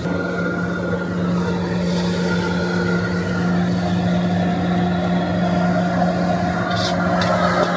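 Steady roar of a commercial gas wok burner and its blower, with a constant hum, and a couple of short scrapes of the metal ladle against the wok near the end.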